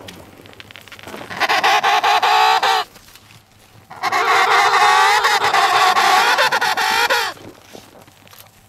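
Emperor penguin giving two loud, warbling calls: a short one, then after about a second's pause a longer one that drops in pitch at its end.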